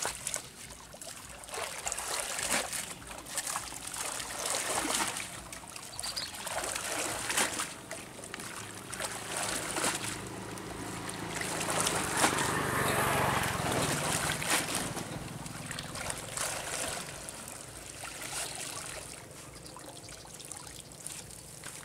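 Water splashing, sloshing and trickling as a fishing net is worked and lifted out of shallow pond water, in irregular splashes that are busiest about halfway through.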